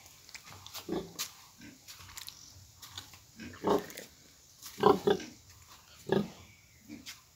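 Pigs grunting, a series of short calls spaced a second or so apart, the loudest a double grunt near the middle.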